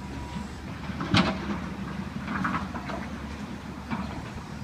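Hydraulic excavator's diesel engine running steadily at a distance. A loud crash of debris comes about a second in, with a few lighter clanks later as the bucket works the demolition rubble.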